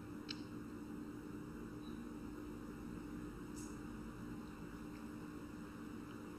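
Quiet room tone with a steady low electrical hum, broken by a faint click shortly after the start and another about halfway through.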